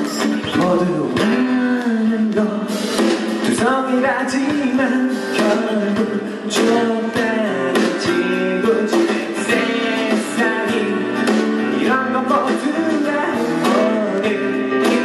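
A man singing into a microphone while strumming an acoustic guitar in a live solo performance.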